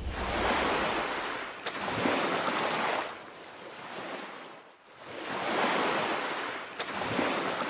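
Rushing water sound effect, a whooshing noise that swells and fades several times in waves.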